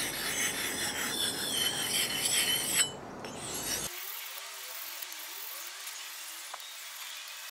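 Steel axe edge being rubbed across the 1000-grit side of a combination waterstone: a continuous gritty scraping as the edge is refined. It drops away about three seconds in and carries on much fainter for the rest.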